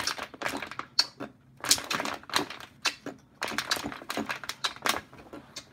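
Thin plastic water bottle crinkling and crackling in a run of irregular sharp clicks as it is squeezed and drunk from.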